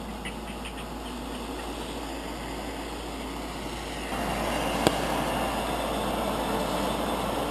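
Small gas canister backpacking stove burning steadily under a pot of water that is coming to a boil. The sound gets louder about four seconds in, and there is one sharp click near five seconds.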